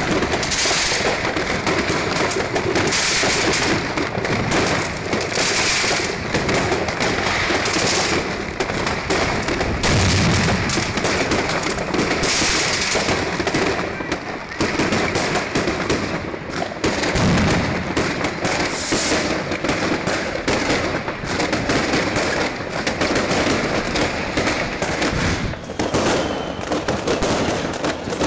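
Many fireworks going off at once: a continuous, dense crackle of sharp bangs, with stretches of hiss.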